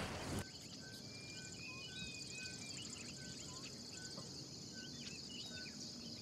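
Faint savanna bush ambience: insects trilling steadily at a high pitch, while a bird repeats a short whistled note about every three-quarters of a second among other scattered chirps. A brief rush of noise cuts off about half a second in.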